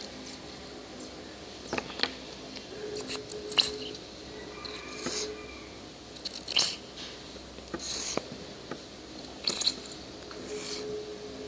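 Wet, sticky squelches of glue and water being worked for slime: short squishy smacks, about nine of them, a second or so apart.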